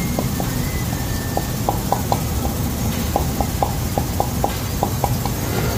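A series of short, light clicks, about three or four a second and unevenly spaced, over a steady low rumble.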